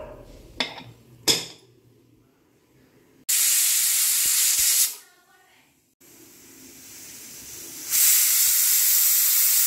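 Prestige pressure cooker whistling: steam hissing loudly out past the lifted weight for about a second and a half, then after a break a second whistle that swells over two seconds and holds loud. Each whistle is the sign that the cooker has come up to full pressure. A couple of light clicks come first.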